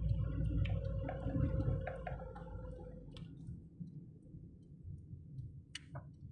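Car cabin noise while driving: a low road and engine rumble that eases after about three seconds, with scattered sharp clicks, the loudest a pair near the end.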